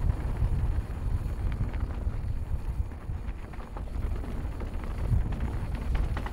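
Wind noise on the microphone of a camera on a mountain bike riding down dirt singletrack, a steady low rumble. Scattered small clicks and rattles come from the bike's tyres and frame over the trail.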